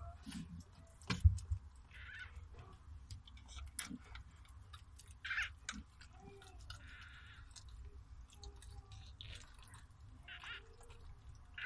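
Newborn puppy giving short, high squeaks several times while the mother dog licks and cleans it, with wet licking and smacking sounds. A single sharp knock about a second in.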